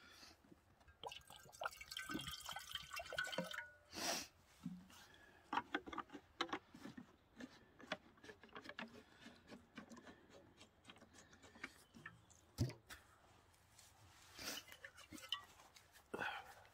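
Water poured from a plastic canteen into a metal mess tin, ringing briefly in the first few seconds, followed by clinks of the tin and small splashes and drips as hands scoop water to wash the face, with louder splashes near the end.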